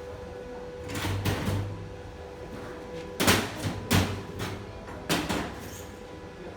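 Several sharp knocks and clattering bumps of hard objects being handled, in three short clusters about one, three and five seconds in, the loudest just after three seconds. A steady hum runs under them.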